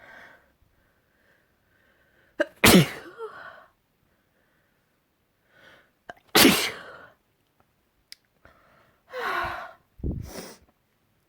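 A person sneezing hard twice, a few seconds apart, each sneeze preceded by a short intake of breath. Two quieter breathy sounds follow near the end.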